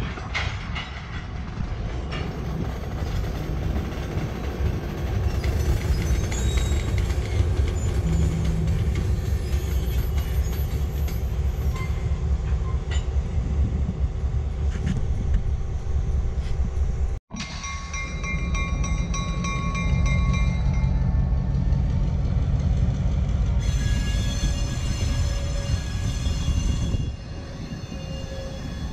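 Freight train of covered hopper cars moving behind a diesel switcher locomotive: a steady low rumble of wheels on rail. Thin high-pitched wheel squeals come in after a sudden brief dropout a little past halfway and are strongest for a few seconds near the end.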